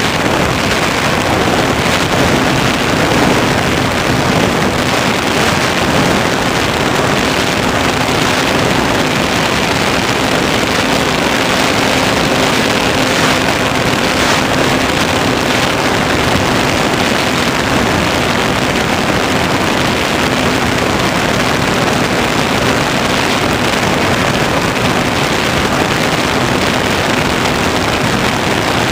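Steady loud rush of airflow over an onboard camera on a flying electric RC motor glider, with the propeller spinning and a faint steady hum underneath.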